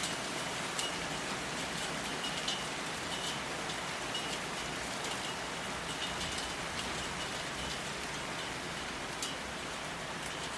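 Steady rainfall with a constant hiss and frequent sharp drips of individual raindrops landing on a hard surface.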